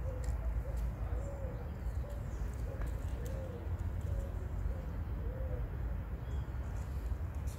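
A dove cooing: a run of short, soft coo notes repeated over and over for about six seconds, then stopping. Under it is a low, steady rumble.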